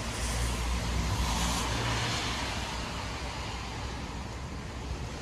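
Heavy rain falling as a steady hiss with a low rumble beneath. It swells louder for about two seconds near the start, then settles back.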